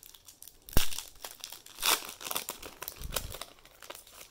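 Crinkling of a trading card pack wrapper as cards are handled and pulled out, with a sharp click about a second in.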